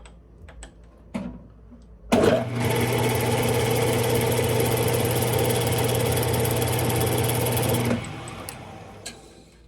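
Smithy lathe's motor switched on after a few light clicks, running steadily with a hum and a hiss for about six seconds, then switched off and spinning down.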